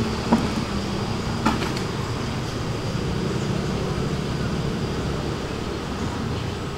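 Steady low rumble of road traffic, with a couple of short clicks in the first two seconds.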